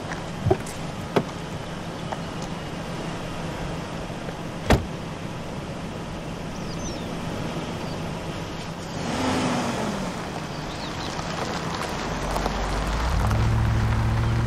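A car engine running steadily, with a few sharp knocks in the first five seconds; near the end an engine rises steadily in pitch and gets louder as a vehicle speeds up.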